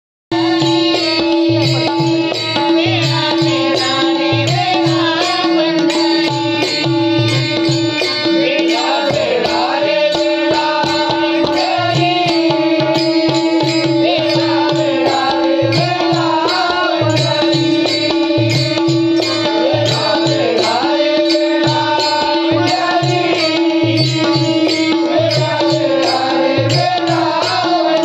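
Devotional bhajan: a solo voice sings winding melodic lines over one steady held drone note. A hand drum keeps a regular beat, with faint high ticks on the beat.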